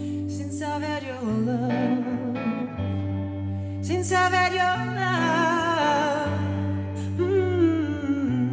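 Live band playing a slow song: a bass guitar holds long low notes that change every second or two under an electric guitar and a wavering lead melody line.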